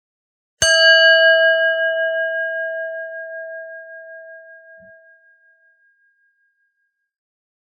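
A bell struck once, about half a second in, ringing with a clear tone and several higher overtones that die away slowly over about five seconds.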